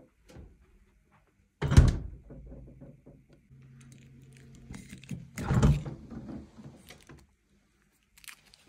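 Household handling sounds: two dull thuds about four seconds apart, with light clattering between them.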